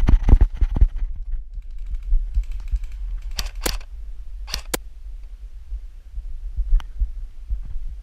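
A low rumble of handling noise on the microphone, with irregular thumps in the first second and a few sharp clicks: two close pairs about three and a half and four and a half seconds in, and a fainter one near the end.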